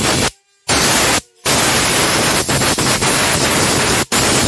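Compressed air from a compressor's air gun blowing out the engine's oil drain after the old oil has been drained: a loud hiss broken by three short pauses.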